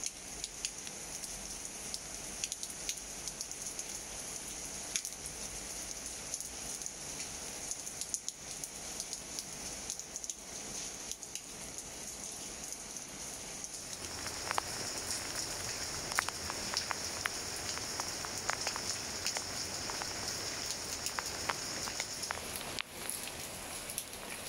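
Rain falling steadily on leaves, many separate drops tapping and crackling over a constant hiss. It grows fuller and a little louder about halfway through.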